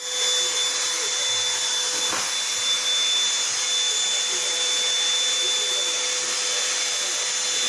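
Vacuum cleaner running steadily: an even rushing noise with a constant high whine.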